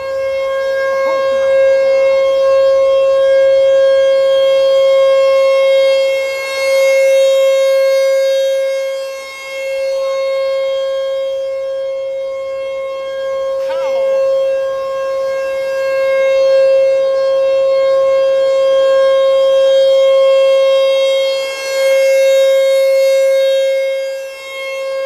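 Outdoor tornado warning siren very close by, sounding its steady alert signal: one loud, unbroken tone that swells and dips in loudness a few times.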